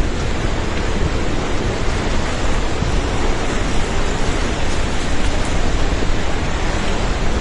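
Loud, steady rush of a river in flash flood.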